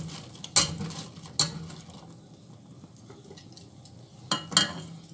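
A metal skimmer stirring fried zalabia dough balls in syrup in a stainless-steel pot: the balls shift softly, with about four sharp clinks of metal on the pot. A faint steady low hum runs underneath.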